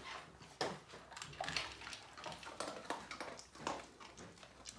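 Small dog eating dry kibble from a stainless steel bowl: irregular faint crunching, with kibble clinking against the metal bowl.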